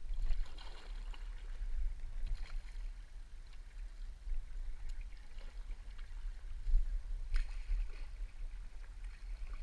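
Canoe paddle strokes splashing in the river, three of them several seconds apart, over water moving past the hull and a steady low rumble.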